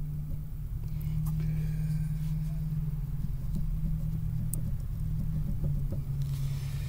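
A motor running with a steady low hum, with a few faint light clicks over it.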